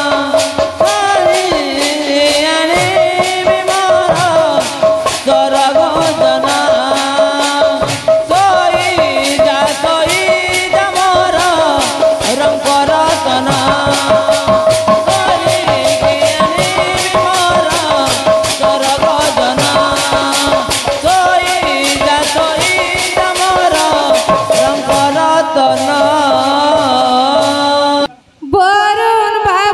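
Odia Rangin Kirtan instrumental passage: a barrel drum is played under fast, even jingling percussion, with a melody line over a steady held note. The music breaks off abruptly for a moment near the end.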